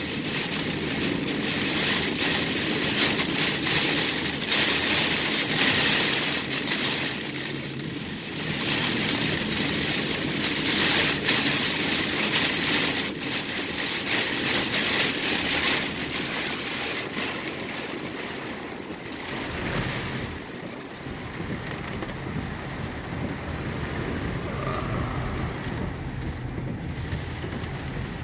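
Heavy rain beating on a car's roof and windshield over the steady low rumble of the car. The rain's hiss eases off about two-thirds of the way through, leaving the car's rumble more to the fore.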